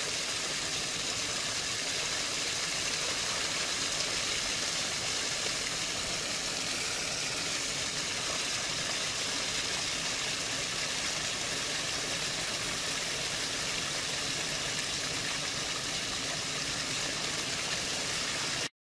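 Wastewater gushing steadily from a discharge pipe into the river, an even rushing that cuts off suddenly near the end.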